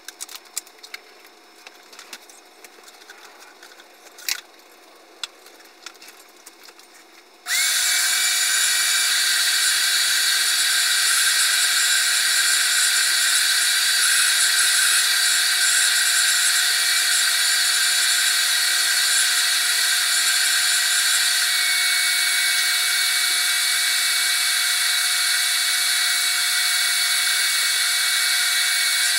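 Wet/dry shop vacuum switched on about seven seconds in, its motor starting abruptly and then running steadily with a high whine while upholstery is vacuumed. Before it starts there are only a few faint clicks and knocks.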